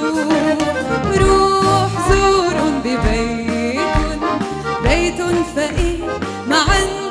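A woman singing an Arabic Christmas song into a microphone, backed by a live band with accordion and a regular low beat.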